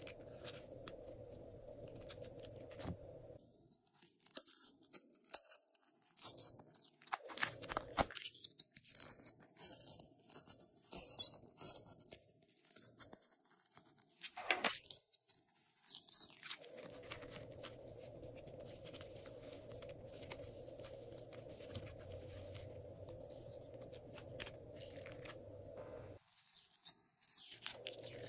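Hands squeezing and pulling soft clay and slime, making dense, irregular sticky crackles and tearing sounds for about twelve seconds. Before and after, only a faint steady hiss.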